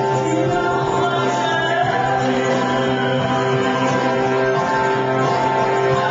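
Music with singing over sustained chords, held at a steady loud level, which cuts off suddenly at the end.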